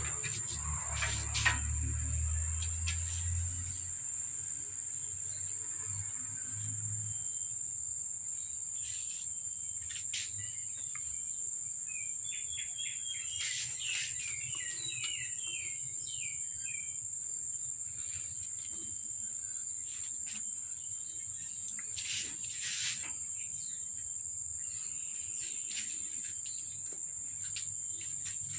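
Insects trilling steadily and high-pitched throughout. About halfway, a bird gives a quick run of chirps, and a few faint clicks are scattered through.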